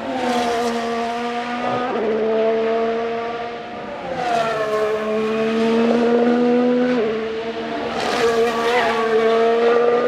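2023 Formula 1 cars' turbocharged V6 hybrid engines, several cars in succession, each swelling loud as it passes and fading. The engine pitch steps abruptly with gear changes.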